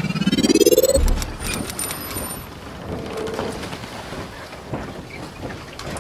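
Channel-logo intro sound effect: a rising whoosh that ends in a low thud about a second in, then a steady rushing noise with a few faint high sparkling tones.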